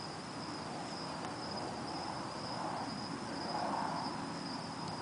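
Crickets chirping: one steady high trill continuing without a break, over a faint background hiss.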